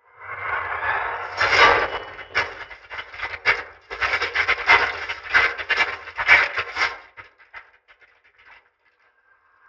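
A dense run of quick knocks, rattles and scraping from a film soundtrack, thinning out and dying away about seven seconds in.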